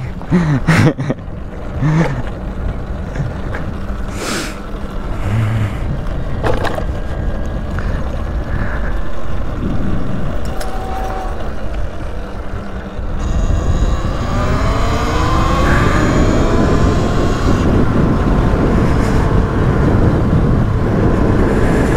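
Wind rumbling on the microphone with scattered knocks. About 13 seconds in it gets louder, and a motor whine rises in pitch for a few seconds.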